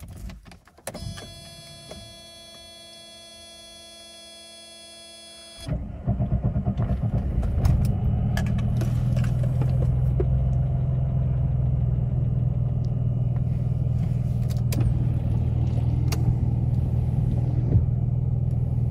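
Mercedes 190E's 2.6-litre M103 straight-six, heard from inside the cabin: after a key click and a few seconds of a faint steady electrical whine with the ignition on, it cranks and starts about five and a half seconds in, then idles steadily.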